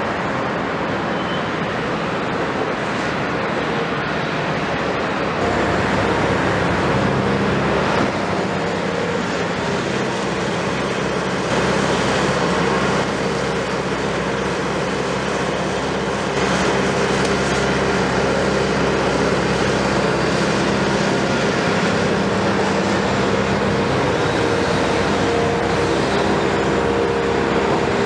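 Diesel engines and hydraulics of two tracked excavators, a CAT 329E and a Hitachi Zaxis 250LCN, running steadily under load while their buckets scoop and drop gravel. The sound steps up in level about five seconds in and again around sixteen seconds.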